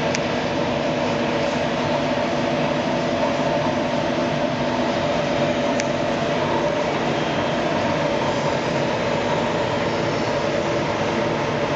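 TOS Celakovice SUA 100 CNC lathe running: a steady mechanical hum with several steady tones over a noisy drone, and a faint tick about halfway.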